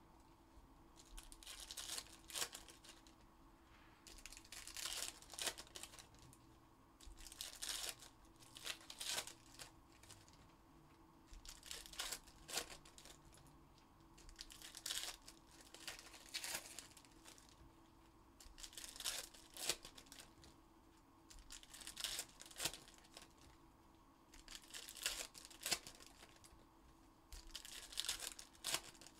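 Foil trading-card pack wrappers being torn open and crinkled by hand, in repeated short bursts every couple of seconds.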